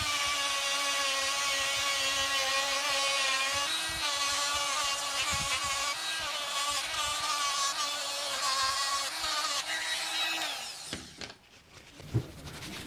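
Corded rotary tool with a buffing wheel spinning against the wooden plane handle, buffing the bare wood: a steady high whine whose pitch wavers slightly. It stops about eleven seconds in.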